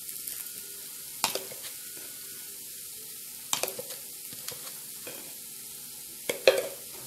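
Sliced shallots and onions sizzling steadily in hot oil in a non-stick kadai. A few brief, sharp clicks break through now and then.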